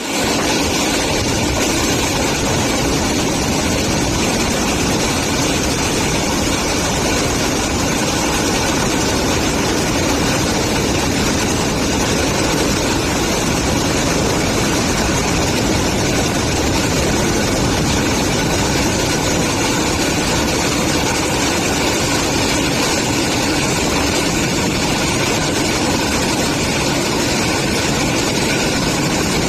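Passenger train in motion, heard from on board: a steady, even running noise with no breaks.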